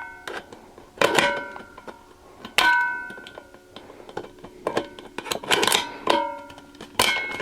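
Hand nibbler biting into a thin stainless steel utensil bin: sharp metal snaps, about seven at irregular spacing, each leaving the bin ringing briefly with a few clear tones.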